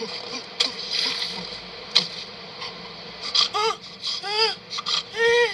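A few soft clicks, then, from about three and a half seconds in, three short crying calls about a second apart, each rising and then falling in pitch.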